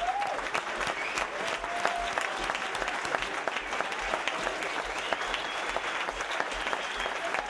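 Audience applauding, a dense and steady clapping with a few faint voices calling out over it.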